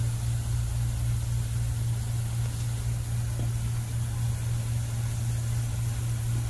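Steady low hum of a running motor or fan over a faint, even hiss.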